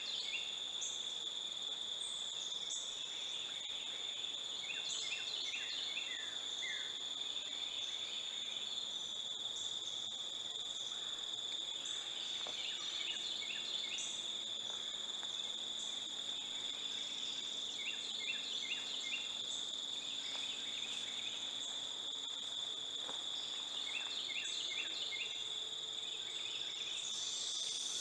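A steady, unbroken high-pitched insect drone, with small birds singing short chirping phrases every few seconds.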